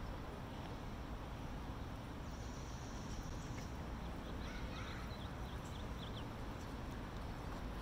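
Steady low outdoor rumble of open-air park ambience, with a bird chirping several times around the middle.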